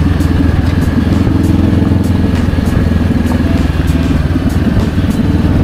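Motorcycle engine running at a steady speed while riding, with wind and road noise.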